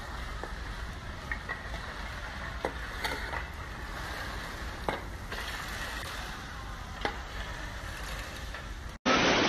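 Steady outdoor rushing noise with a low rumble and a few faint clicks scattered through it. It cuts off abruptly near the end, and a louder, noisier passage takes over.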